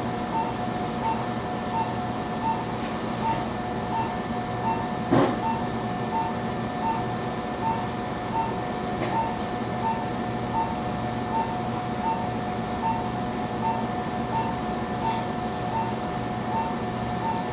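Operating-room patient monitor beeping steadily, a little more than once a second, over a steady hum of surgical equipment. There is a single sharp knock about five seconds in.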